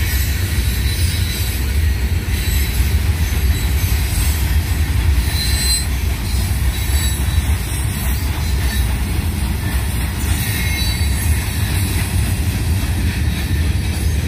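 Two long freight trains rolling past at once: a steady, loud rumble of railcar wheels on the rails, with faint high wheel squeal now and then.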